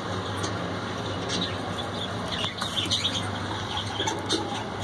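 Budgerigars chirping in short, high calls, scattered through the moment, with wings fluttering in the cage, over a steady low hum.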